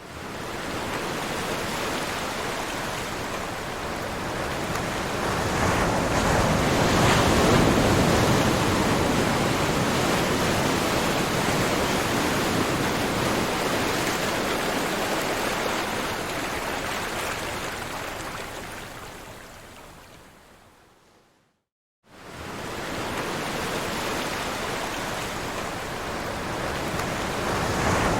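Ocean surf: a steady wash of wave noise that swells over the first several seconds and slowly fades. It dies away to silence about three-quarters of the way through, then starts again abruptly.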